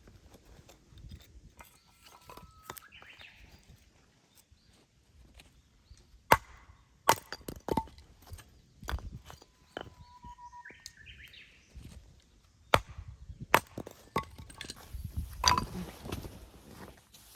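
Scattered sharp snaps and knocks, about half a dozen loud ones spread across the stretch, with a bird calling faintly twice in the background.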